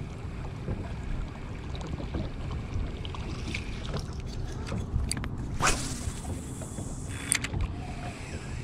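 Open-water ambience in a small fishing boat: a steady low rumble of wind and water. A sharp swish cuts through a little past halfway, and a fainter one comes about three-quarters in.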